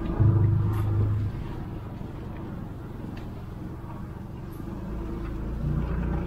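Dog-team-pulled ATV rolling over rough, grassy ground: a low vehicle rumble, with a steady hum in the first second.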